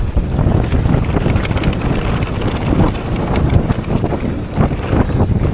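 Mountain bike riding fast down a rough trail: wind buffeting the microphone over a low tyre rumble, with irregular knocks and rattles from the bike.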